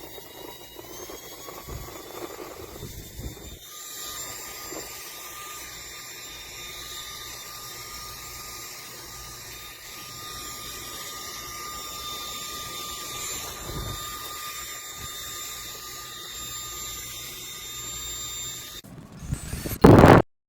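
Small high-speed electric fan motor running with a steady whir of air and a thin constant whine. A brief loud burst of noise near the end, then the sound cuts off suddenly.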